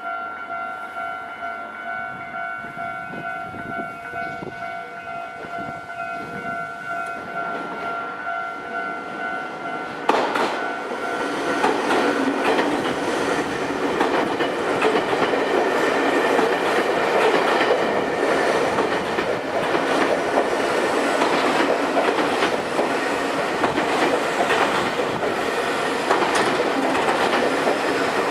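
Level-crossing warning bell ringing in a steady pulsing tone. About ten seconds in, a train comes onto the crossing and passes, loud and continuous, its wheels clattering over the rail joints and drowning out the bell.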